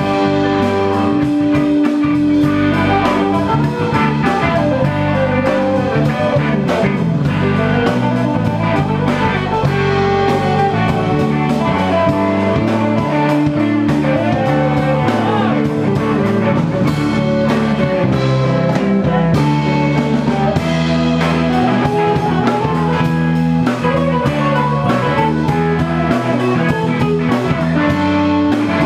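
Live rock band playing an instrumental passage: electric guitar lines over bass guitar and a drum kit.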